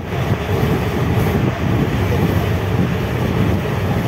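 Express passenger train running at speed, heard from on board the coach: a steady, loud rumble of the carriage and its wheels on the rails.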